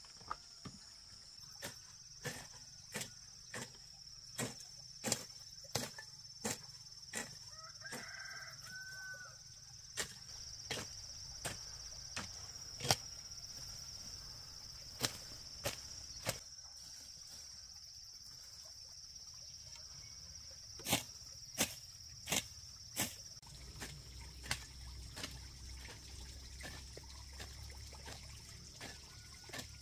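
Hand hoe chopping into garden soil in irregular strokes, about one or two a second, with a pause of a few seconds past the middle. A steady high-pitched insect drone runs underneath.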